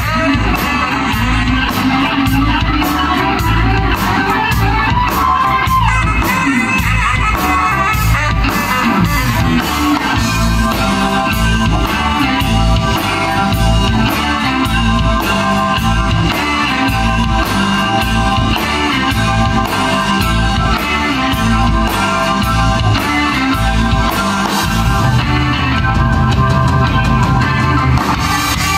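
Live rock band playing: saxophone lead over keyboard, electric guitar and a steady drum-kit beat, amplified through stage speakers.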